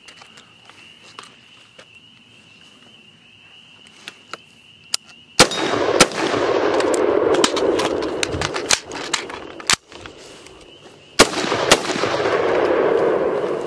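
Sig Sauer MCX Rattler short-barreled 5.56 rifle fired in two strings of rapid shots. The first starts about five seconds in, and the second follows a brief pause about eleven seconds in.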